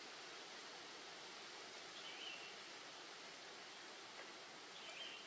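Faint outdoor forest ambience: a steady hiss, with a short high-pitched call heard faintly twice, about three seconds apart.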